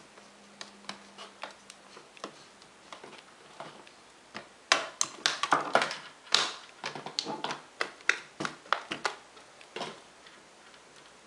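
Small screwdriver turning screws into a Dell Inspiron 1545 laptop's plastic screen bezel: a run of light, irregular clicks and ticks, sparse at first and then quicker and louder from about four and a half seconds in.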